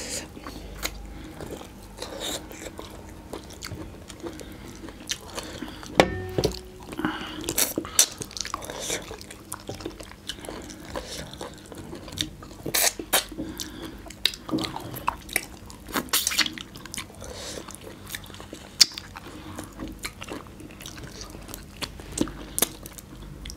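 Close-up eating sounds of two people gnawing and sucking on cooked mutton leg bones: irregular wet smacks, sucks and chewing clicks.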